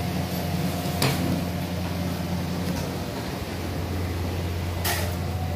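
Steady low mechanical hum of commercial kitchen machinery such as ventilation or refrigeration, with a sharp click about a second in and a short light clatter near the end.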